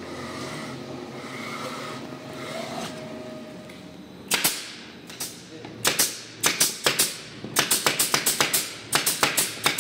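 Pneumatic brad nailer firing brads into melamine-faced board: sharp single shots starting about four seconds in, then quick runs of several shots a second.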